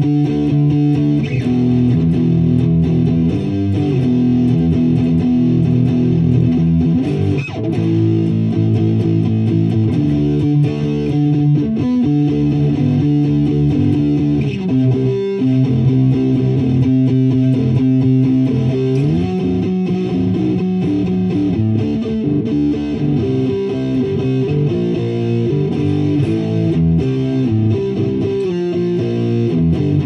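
Electric guitar played through a switched-on Wampler Tumnus Deluxe, a Klon-style overdrive pedal, giving a lightly overdriven tone; sustained chords and single notes ring and change every second or two.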